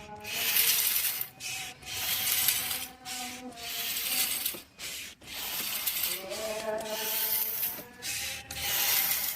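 Compressed air from a compressor blow gun hissing through the engine's cleaned oil passages, in repeated blasts of a second or two with short breaks.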